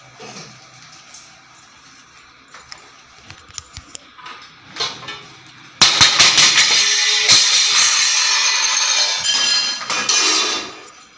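Steel kitchen utensils knocked about by an elephant's trunk: a few light clinks, then about six seconds in a sudden loud clatter and ringing of metal pots and plates that lasts about five seconds before dying away.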